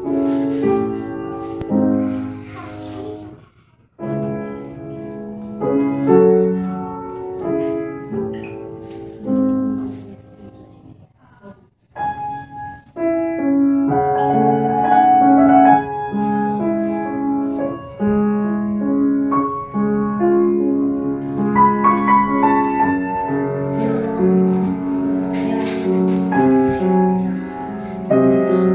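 Grand piano played solo. The playing breaks off briefly about four seconds in and falls almost silent for a couple of seconds around ten seconds in, then resumes fuller and louder.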